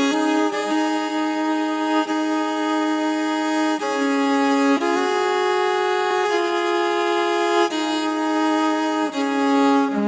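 Instrumental music: a bowed violin melody played in long held notes, changing pitch every second or two.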